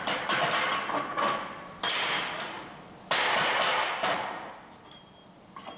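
Chipping hammer knocking slag off a fresh weld on steel angle: a quick run of light metallic taps, then two louder clanks of steel about two and three seconds in that ring on for a second or so, with a few faint clinks near the end.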